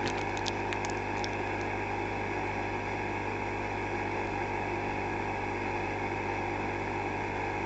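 Steady electrical hum with a fan-like whir from running repair-bench equipment, and a few faint ticks in the first second and a half.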